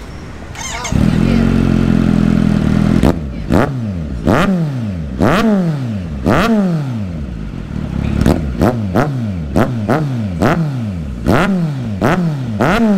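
Motorcycle engine with an SC-Project side-cut exhaust, idling, then held at a steady higher speed for about two seconds, then given a long series of sharp throttle blips. Each blip rises quickly and falls away, about one a second, sometimes in quicker clusters.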